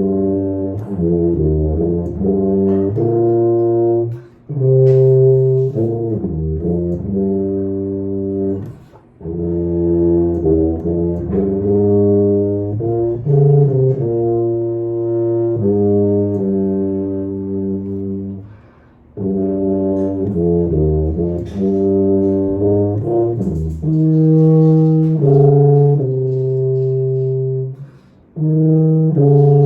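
Tuba playing a slow melody of sustained low notes. The phrases are separated by short pauses for breath.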